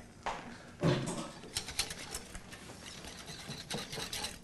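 Wire whisk stirring and scraping in a ceramic bowl, a run of light quick clicks and scrapes, as a still-dry, crumbly mix of icing sugar and cocoa powder takes its water for chocolate icing.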